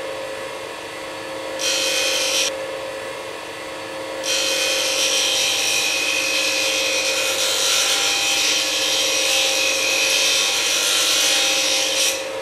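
Bench grinder running with a steady hum, a steel chisel pressed against the grinding wheel to grind a new square edge. A short grinding hiss comes about a second and a half in, then a longer one from about four seconds in that lasts some eight seconds and stops just before the end.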